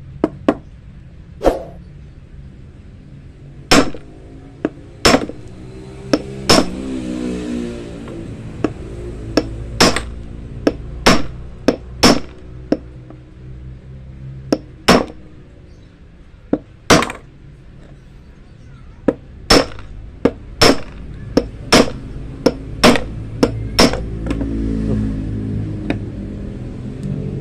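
Hammer striking a straightened steel spring wire laid on an axe head used as an anvil, flattening its end: sharp metal-on-metal taps at irregular intervals, roughly one a second, each with a brief ring.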